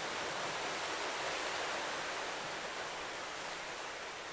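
Ocean surf washing on a shore: a steady, even hiss of waves with no single breaker standing out.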